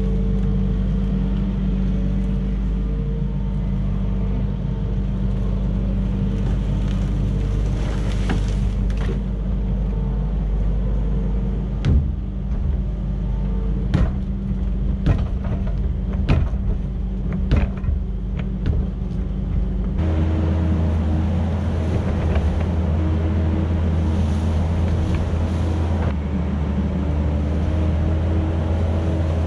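Kubota SVL75-2 compact track loader's diesel engine running steadily under work, with several sharp knocks near the middle as the bucket works the dirt and pipe. The engine note changes abruptly about two-thirds through.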